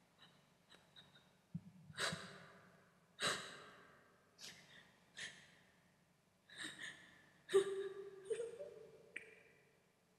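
A person's heavy, ragged breathing: a string of sharp breaths and sighs about a second apart, with a short moaning tone about three-quarters of the way through.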